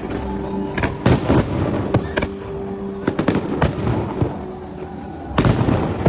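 Fireworks display: aerial shells bursting overhead in an irregular series of sharp bangs and crackles, with a dense volley of bursts near the end.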